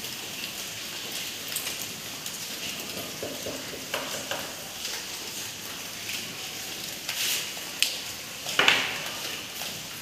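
Marker pen scraping on a whiteboard as equations are written, in a few short strokes that grow more frequent in the second half, the loudest about a second and a half before the end, over a steady hiss.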